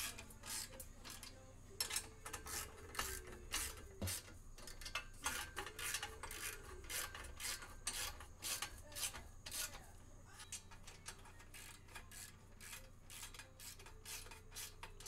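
Ratchet wrench clicking in short, uneven strokes, two or three a second, as nuts are run down onto the exhaust flange bolts.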